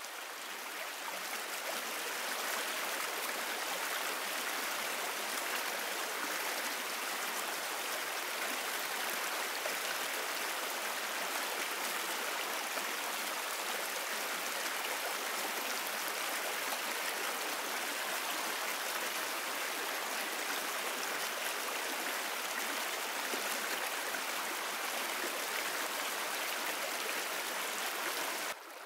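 A stream flowing: a steady rush of water that swells over the first two seconds and cuts off abruptly near the end.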